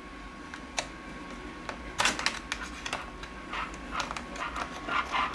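Small plastic clicks and scrapes of a USB cable plug being fitted into a laptop's USB port and the cables being handled: a couple of single clicks first, a cluster about two seconds in, then a busier run of clicks and rubbing near the end.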